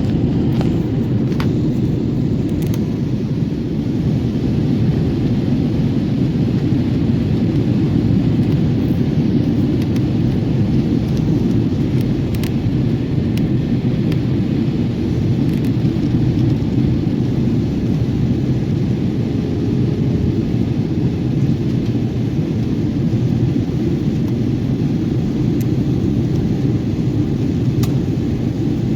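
Steady low roar inside a passenger airliner's cabin: engine and airflow noise, with a few faint clicks in the first few seconds.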